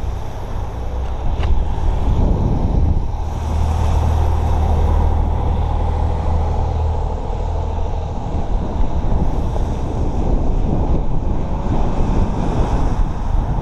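Wind buffeting the microphone of a camera on a moving bicycle: a steady low rumble that swells for a few seconds about three seconds in.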